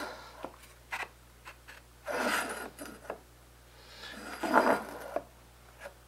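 Wooden pieces and a metal square sliding and tapping on a wooden workbench as two toy tracks are lined up: a few short scrapes, the longest about two seconds in, and scattered light clicks.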